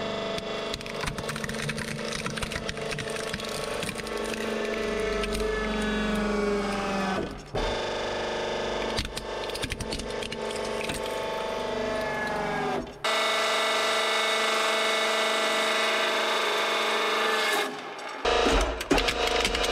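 Hydraulic press running through several crushes in a row, its pump giving a steady whine that sags in pitch under load, while plastic objects (a compact film camera, a toy truck) crack and crunch under the ram. The sound changes abruptly at each cut, with a softer, quieter stretch during a fabric mask.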